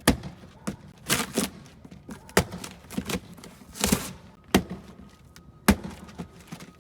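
A hammer knocking against the monitor's cardboard box: about nine separate sharp thuds at uneven intervals.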